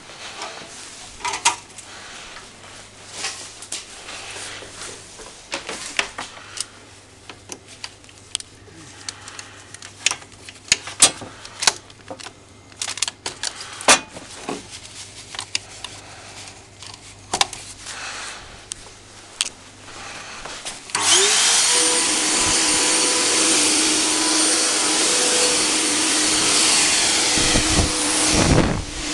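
Scattered handling clicks and knocks, then about 21 seconds in the Volkodav cold-fog generator's blower motor starts: its whine rises briefly and settles into a loud, steady rushing as it sprays insecticide fog.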